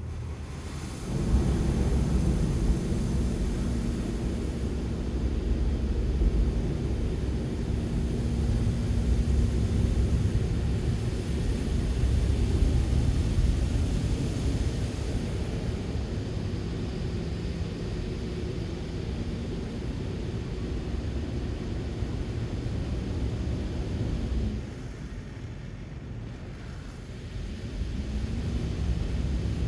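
Vehicle engines rumbling low with a steady hum: the noise of heavy traffic or road machinery. It swells about a second in, drops back for a few seconds late on and builds again near the end.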